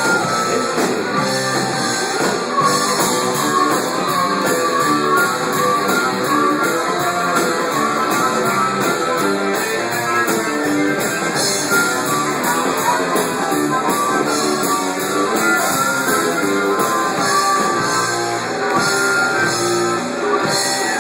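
Music with a prominent guitar, an instrumental passage without singing.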